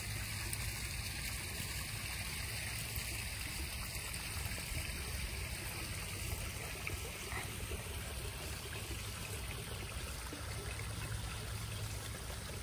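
Steady running and trickling water from a backyard koi pond's waterfall stream.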